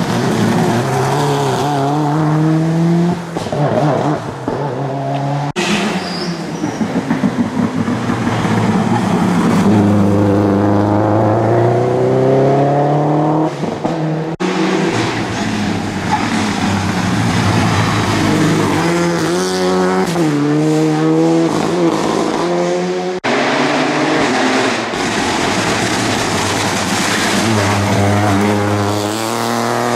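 Rally cars at full throttle, engine pitch climbing and dropping again and again as they accelerate and change gear, one car after another. The sound cuts abruptly three times from one car to the next.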